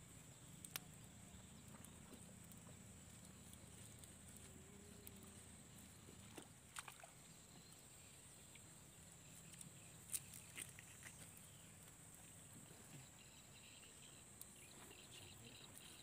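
Near silence, broken by a few faint clicks and scrapes of a knife cleaning fish on a wooden plank.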